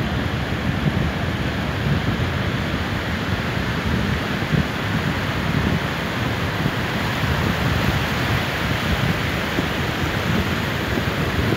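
Wind buffeting the microphone over the steady wash of ocean surf breaking along a sandy beach.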